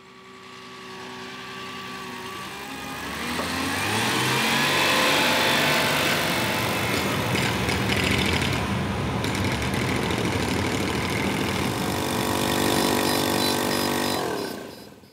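An engine-like mechanical drone fades in, rises in pitch over the first few seconds, holds steady, and fades out near the end.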